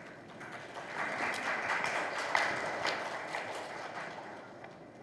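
Audience applauding, swelling about a second in and fading toward the end.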